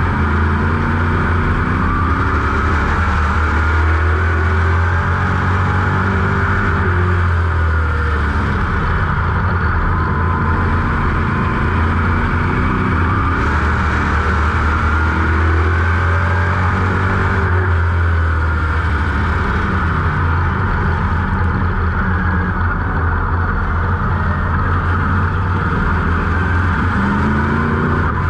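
602 Sportsman modified's crate small-block V8 heard from inside the cockpit at race speed. The engine pitch climbs and falls again every few seconds as the driver gets on the throttle down the straights and lifts for the turns, lap after lap.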